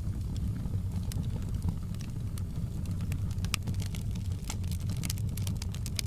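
Wood fire in a fireplace crackling: irregular sharp pops and snaps, several a second, over a steady low rumble of the burning fire.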